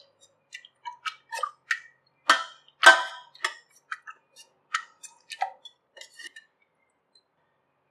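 Irregular sharp clicks and knocks of kitchen utensils or vessels being handled, about fifteen over six seconds, the two loudest near the middle, with silence between them.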